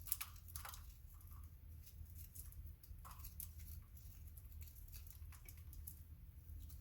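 Faint small scrapes and clicks of a small non-plastic tool picking at the clay and powder inside a firework cracker, over a low steady hum.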